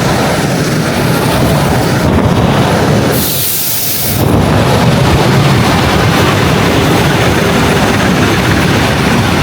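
Suburban electric train running, a loud steady rumble. About three seconds in the rumble dips for a second under a short high hiss.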